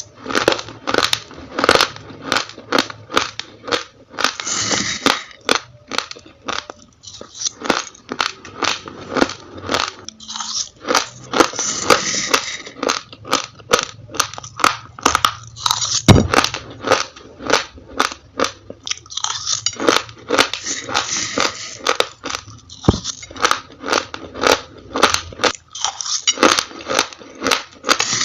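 Raw, uncooked rice grains being chewed close to the microphone: a fast, irregular run of sharp crunches and cracks, several a second, with one louder crack about halfway through.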